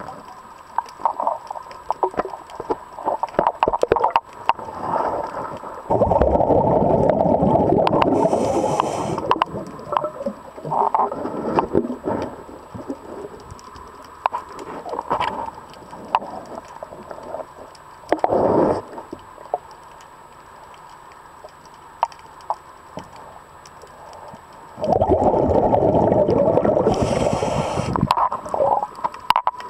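Underwater, a scuba diver's exhaled breath bubbling out of the regulator in two long bursts, about six seconds in and again near the end, with scattered light clicks and knocks in between.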